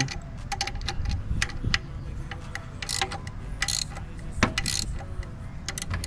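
Irregular metallic clicks and clinks of hand tools working on an engine's accessory belt adjustment, tightening a squeaking belt.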